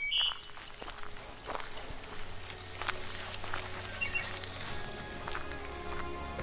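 Steady high chirring of field insects such as crickets, with scattered soft ticks and rustles from footsteps through tall dry grass, and a couple of short high chirps.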